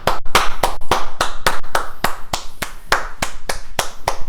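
Hands clapping steadily, about five claps a second.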